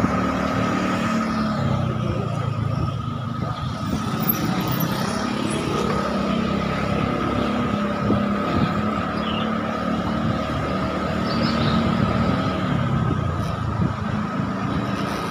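Motor scooter engine running at low speed, its pitch rising and falling gently with the throttle, with a steady high whine over it.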